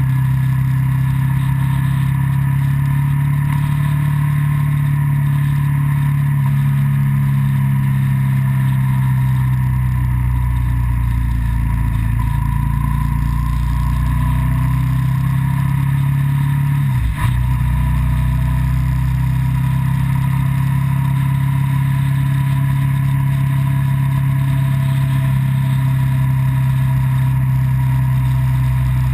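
Vehicle engine running steadily at cruising speed, heard from on board, with one brief dip in the engine note a little past halfway.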